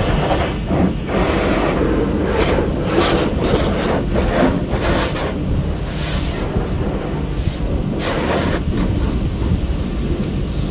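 Water from a Peco car wash tunnel's spray arches hitting the windshield and body of a car, heard from inside the cabin, over a steady low rumble of the tunnel equipment. The spray comes in uneven surges about every half second to a second.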